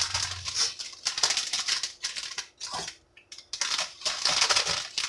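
Packaging crinkling and rustling as it is handled, in two stretches with a short pause about three seconds in.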